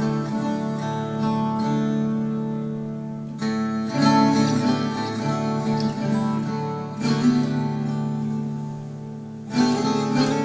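Instrumental introduction of a song played on acoustic strings: ringing chords that change about every three seconds, with no voice yet.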